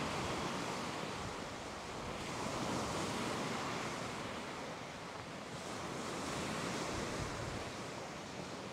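Lake Ontario waves washing onto the shore, a steady rush that swells and eases every few seconds, with some wind.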